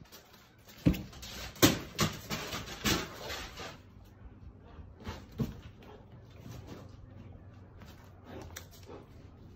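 A shepadoodle playing with rubber balls on brick pavers: a cluster of sharp knocks and thuds about one to four seconds in, then a few scattered ones later.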